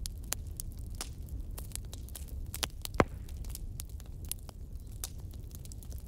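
Wood campfire crackling, with many sharp pops and one loud pop about three seconds in, over a low steady rumble.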